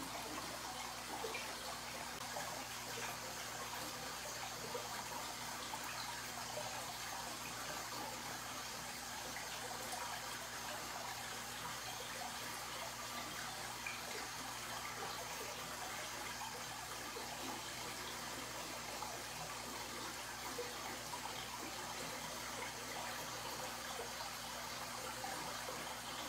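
Aquarium aeration: streams of air bubbles rising and bubbling steadily through the tank water, with a faint low hum underneath.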